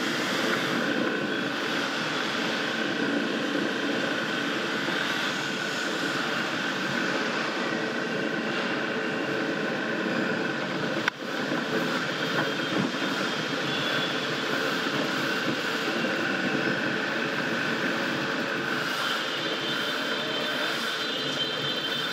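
Motor scooter engines running at low speed, the rider's own and those of many other scooters around it, on a ferry's enclosed car deck. One sharp knock about halfway through.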